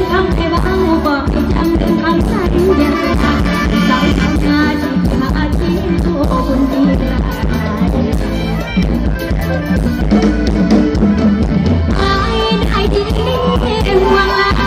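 Live Isan luk thung band music with drums and bass guitar, a woman singing into a handheld microphone.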